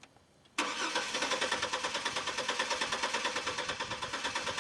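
Chevrolet Trailblazer engine being cranked by its starter motor without catching, an even rapid chugging that starts suddenly about half a second in: the truck cranks but won't start.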